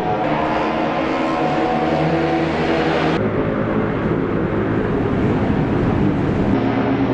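Historic Formula One race car engines running at fairly steady revs. The sound changes suddenly about three seconds in and again near the end.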